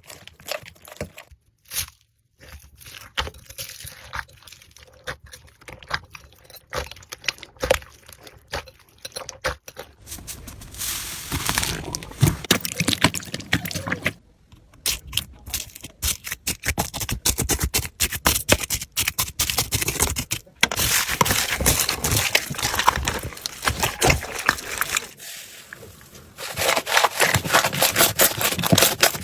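Slime being handled by hand, a dense run of crackling, clicking and scraping. It comes as several separate takes that change abruptly, about 2, 14, 20 and 26 seconds in.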